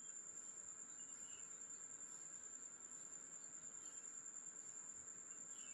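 Near silence, with a faint steady high-pitched tone.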